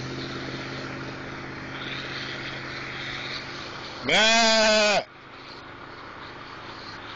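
A man's voice imitating a bleat, one drawn-out 'meh' about four seconds in that rises in pitch at the start and drops at the end, calling cows. A steady low hum runs underneath.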